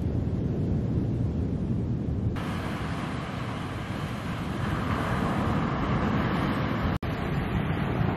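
Wind buffeting the microphone over the steady wash of breaking ocean surf. About two seconds in, the hiss of the surf grows stronger, and near the end the sound cuts out for an instant.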